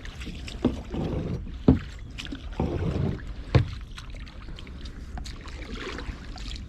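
Water splashing and sloshing with a few knocks, irregular through the first four seconds, then only a low steady background of moving water.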